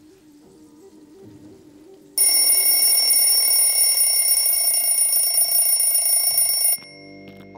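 An electric bell ringing loudly and without a break for about four and a half seconds, a shrill steady ring, then cutting off suddenly.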